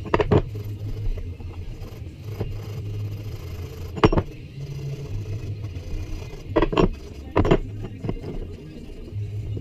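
A few short scrapes and knocks from hand-rubbing a rusty Estwing hatchet's steel handle with a small piece of abrasive, heard near the start, about four seconds in and twice later on, over a steady low hum.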